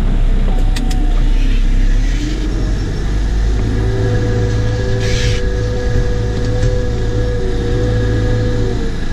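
Cat 914G wheel loader's diesel engine running while the loader drives with a bucket of snow, heard from inside the cab. The engine pitch shifts in the first two seconds and then holds steady, with a brief hiss about five seconds in.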